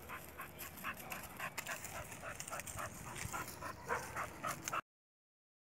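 Pit bull whining and yipping in quick short calls, several a second, cut off abruptly near the end.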